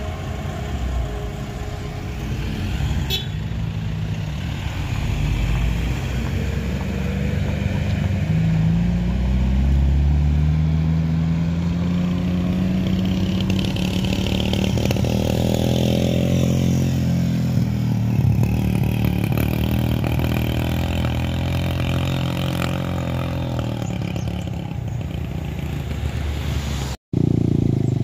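Car engines working hard as they climb a steep hill. One car passes close by about halfway through, its engine note rising as it nears and then easing off.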